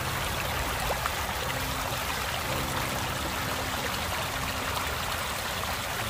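Shallow stream running over a bed of rounded pebbles, a steady rushing, babbling flow of water.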